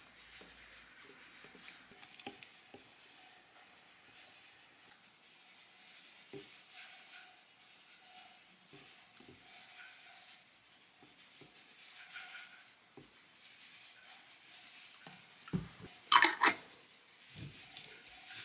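Soy-based jangajji sauce being poured from a bottle into a glass jar packed with salted radish strips, a faint trickling and glugging with small ticks. Near the end come a few loud sharp knocks.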